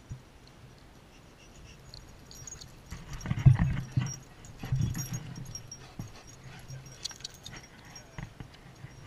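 Two greyhounds romping on grass close by: a flurry of paw thuds and scuffles, loudest about three to five seconds in, then lighter footfalls with a light metallic jingle.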